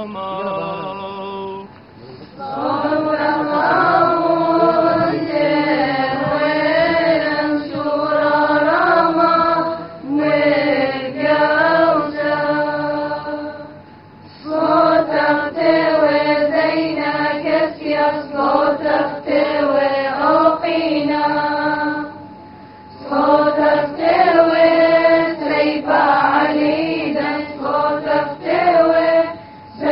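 Voices chanting a church hymn in long, slowly bending sung phrases, with brief breaks about 2, 14 and 22 seconds in.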